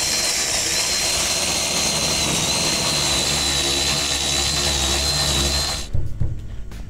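Cordless power tool running steadily with a high whine, spinning a socket on a long extension to run down the mounting nut of a truck's brake master cylinder. It cuts off about six seconds in, followed by a couple of light knocks.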